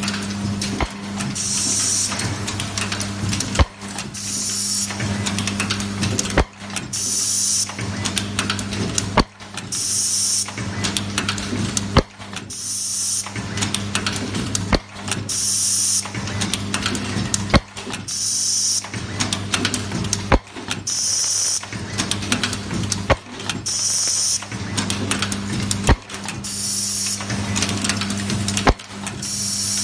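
Automatic nylon zipper film-sealing, hole-punching and pin-box machine running through its cycle. A steady low hum sits under sharp mechanical clacks, with a short high hiss repeating about every three seconds.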